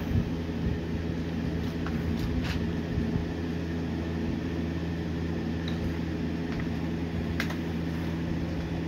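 Steady low hum of a running fan or appliance motor, with a few faint clicks.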